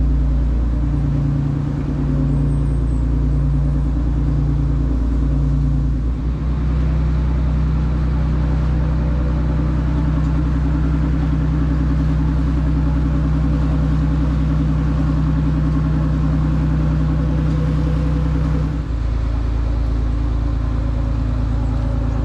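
Dutch barge's inboard diesel engine running steadily at cruising speed, a deep even drone.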